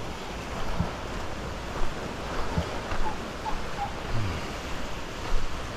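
Small surf washing onto a sandy shore as a steady hiss of waves, with wind on the microphone and a few short low bumps.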